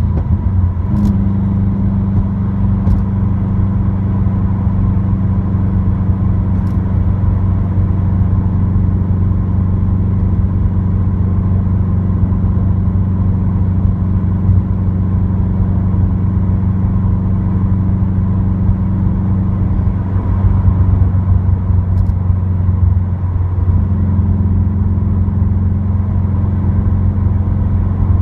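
Subaru WRX with an Invidia dual N1 cat-back exhaust, heard from inside the cabin, droning steadily at cruise: its turbocharged flat-four gives a deep, even hum with a few faint ticks.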